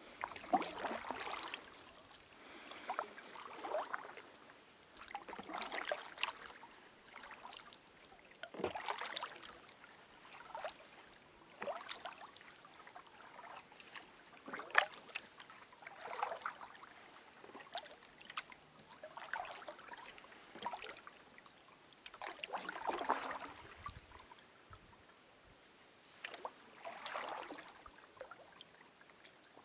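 Kayak paddle strokes through calm river water, a stroke every second or two, each a soft swish and splash with small drips and clicks off the blade.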